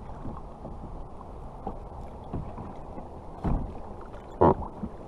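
Wind buffeting the microphone and water around a plastic kayak, a steady low rumble, with two short thumps from handling gear on the hull, the louder one about four and a half seconds in.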